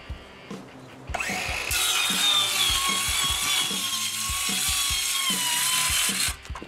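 RIDGID Gen5X R8652 cordless 7-1/4-inch circular saw with a brushed motor, spinning up about a second in and cutting through a sheet of 7/16-inch OSB, its whine sagging slightly in pitch under load before it stops near the end. Background music with a steady beat underneath.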